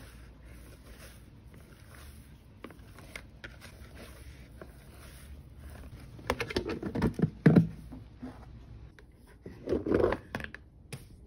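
Hands working bread dough in a glass mixing bowl, faint at first, then a clear plastic cover scraping and knocking against the glass bowl's rim in two loud clusters, about six seconds in and again about ten seconds in.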